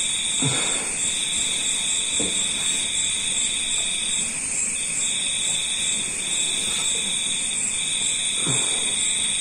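Continuous high-pitched trilling in several steady pitches, one of them breaking off briefly about every second and another pulsing quickly, in the manner of an insect chorus. Two or three short, low, falling voice sounds, like brief groans, come through it.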